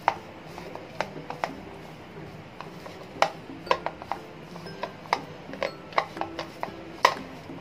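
Metal spoon clinking and scraping against a bowl while tossing boiled potato cubes in a flour and spice coating: irregular sharp clinks, the loudest about three seconds in and again near the end.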